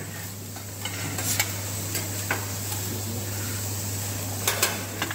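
Metal spatula clicking and scraping on a flat steel teppan griddle as fried rice is worked and portioned, a handful of sharp clicks, two close together near the end. Under it, fried rice sizzling faintly on the hot plate and a steady low hum.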